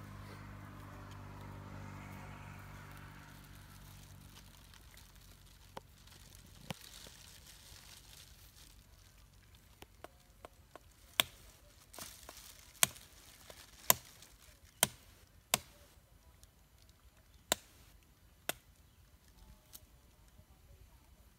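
Dry twigs and stems snapped by hand: about a dozen sharp, separate cracks at irregular intervals, the loudest clustered in the middle. A low hum fades away over the first few seconds.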